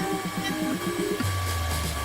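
Electronic background music: a fast, evenly pulsing pattern of pitched notes that gives way about a second in to a held deep bass note.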